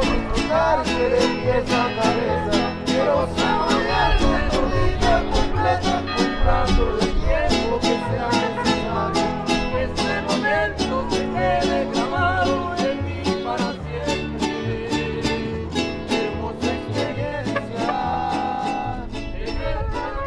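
Upbeat country-bluegrass background music with banjo and guitar over a steady beat.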